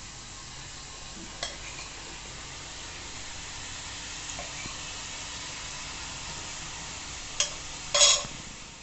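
Spiced wheat flour dough pieces frying in hot oil in a kadai, a steady sizzle. A few sharp knocks cut through it, the loudest near the end.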